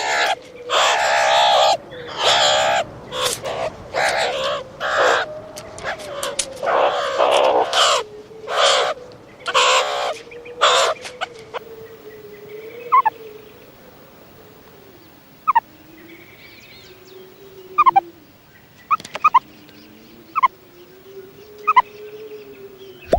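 Meerkats calling: a run of loud, harsh, rapid calls for about the first half, then sparse short chirps that drop in pitch.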